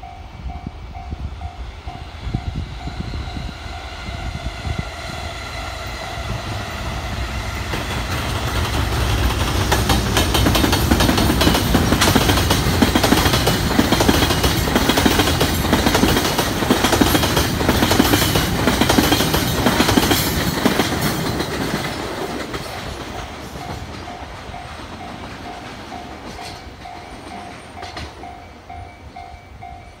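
A freight train of Taki 1000 tank wagons running past, loudest through the middle, with a heavy rumble and a rapid run of knocks from the wheels, then fading away. A level-crossing warning bell rings steadily at a few strokes a second; it is plainest at the start and again near the end, when the train is quieter.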